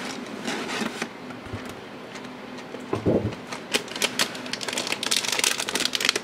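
A cardboard model-kit box being opened and handled, with a dull knock about three seconds in. Then comes the crinkling of the clear plastic bags around the kit's plastic runners, growing dense near the end.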